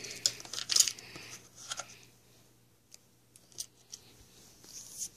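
Scattered light clicks and rustles of fishing lures and tackle being handled, busiest in the first second.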